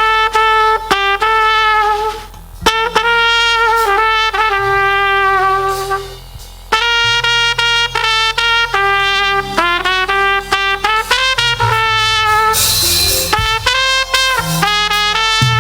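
Trumpet playing a melodic line in phrases over a live band with bass underneath, with short breaks between phrases and a brief crash near the end.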